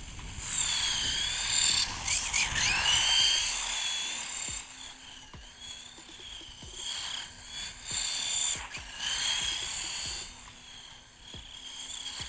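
Haiboxing Ratchet 1/18-scale RC buggy's electric motor and drivetrain whining, the pitch rising and falling again and again as the throttle is worked. It is loudest in the first few seconds and swells again past the middle.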